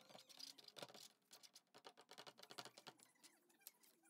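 Faint, quick taps and scratches of acrylic paint being dabbed and scraped onto a canvas.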